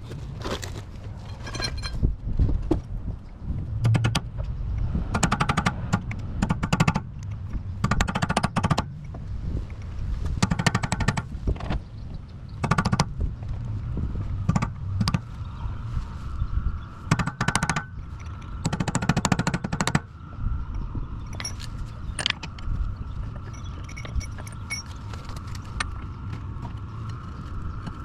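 Bursts of rapid metal-on-metal impacts, each about a second long, repeated around eight times: tool work to free a stuck CV axle on a BMW. A faint steady high tone joins in about halfway through.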